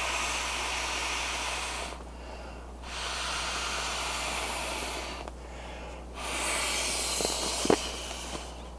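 A man blowing three long breaths into the valve of an ultralight inflatable pillow, each a steady rush of air about two seconds long, with short pauses between.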